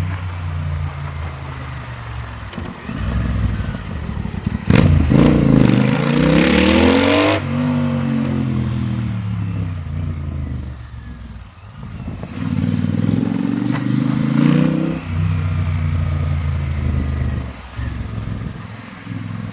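Royal Enfield Continental GT 650's parallel-twin engine running with its exhaust removed, open and unmuffled. It is revved hard twice, the pitch climbing and then falling back as the throttle closes, with the first run-up about five seconds in the loudest.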